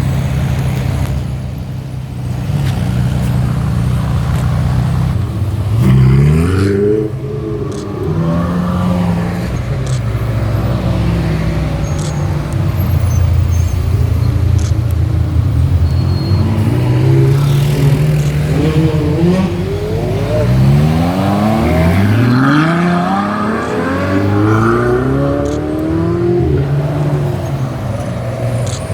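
Ferrari sports-car engines running and driving past. Their exhaust note drones steadily, broken by rising revs: one about six seconds in, then a run of several quick rising sweeps near the end as cars accelerate hard.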